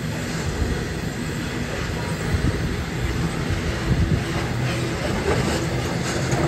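Freight train's hopper wagons rolling past, a steady low rumble of steel wheels on rail, with sharp clicks of the wheels starting about five seconds in.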